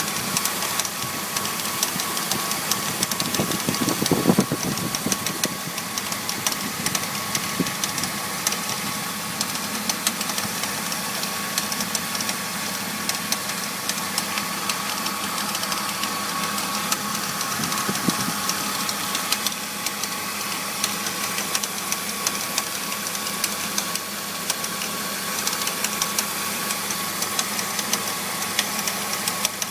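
BMW E46 325i's inline-six engine idling with a steady, fast rattle, swelling briefly louder about four seconds in. The rattle appeared after the pulleys, serpentine belt and power steering pump were replaced, and its cause is unknown to the owner.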